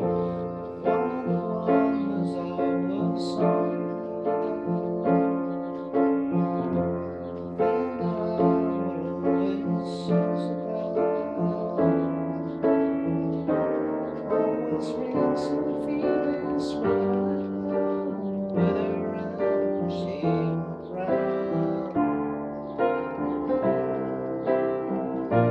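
Instrumental music: a melody over held low bass notes, played as a cover piece.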